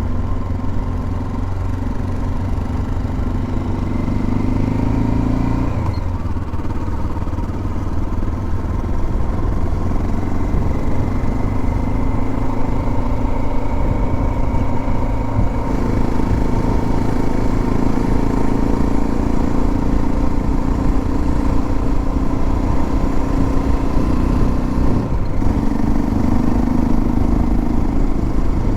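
Motorcycle engine running steadily while riding, heard from on the bike, its note shifting a few times along the way.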